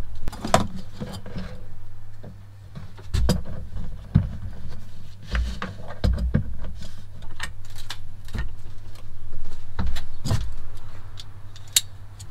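Irregular small clicks and knocks of hands handling heavy red cable and the metal hardware of a cable joint, a nut and bolt holding two ring crimp terminals together, over a steady low hum.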